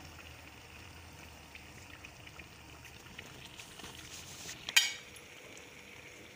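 Besan-battered bread pakoras deep-frying in hot oil: a steady, faint sizzle with small crackles. About five seconds in, one sharp clink as the metal tongs strike the pan while turning and lifting the pakoras.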